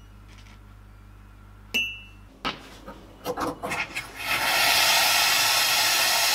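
A spoon clinks once against a ceramic mug, followed by a few light handling clicks. Then, from about four seconds in, a steady hiss of near-boiling water runs from a boiling-water tap into the mug.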